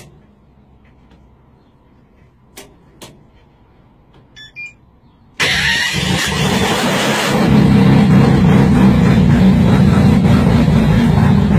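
A few faint clicks, then about five seconds in the engine of a triple-turbocharged modified car fires up suddenly and keeps running loudly.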